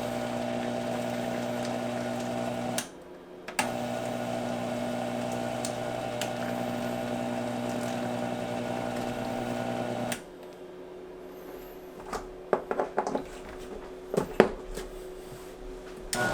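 Vitamix 7500 blender's motor running at low speed off a portable generator, a steady electric hum. The hum cuts out briefly about three seconds in and drops away about ten seconds in, leaving a faint steady tone with scattered clicks and knocks.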